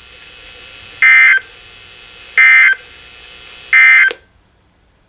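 Three short screeching bursts of Emergency Alert System digital data from a weather radio, about 1.3 seconds apart: the End of Message code that closes the severe thunderstorm warning. A faint steady hiss runs between the bursts, and a click just after the last one as the signal cuts off.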